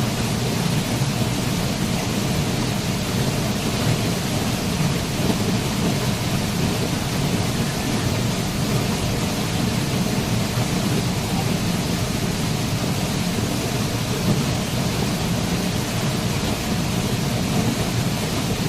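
Waterfall: a steady, unbroken rush of falling water with a deep low rumble under a bright hiss.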